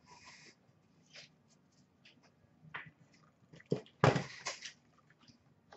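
Faint scattered rustles and light clicks of a trading-card pack and cards being handled, then about four seconds in a brief burst of crinkling as a card-pack wrapper is torn open by hand.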